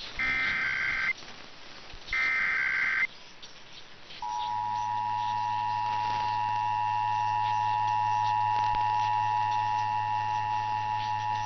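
Emergency Alert System SAME header: two short, buzzy digital data bursts about a second apart. About four seconds in, the EAS two-tone attention signal (853 and 960 Hz together) starts and holds steady. It opens the alert for a required monthly test.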